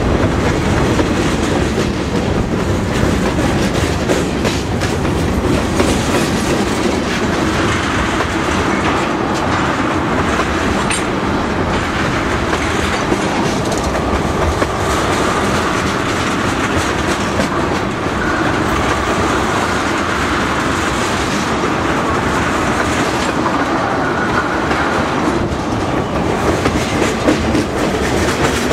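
Freight train cars, boxcars and tank cars, rolling past with their wheels clacking steadily over the rail joints.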